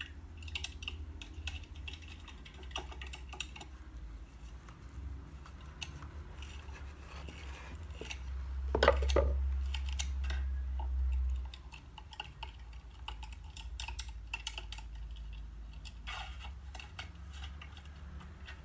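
Kitchen knife slicing through a kimbap roll on a wooden cutting board: crackly crunching of the dried seaweed wrapper and light taps of the blade on the board. About nine seconds in there is a louder thud followed by a low rumble lasting a few seconds.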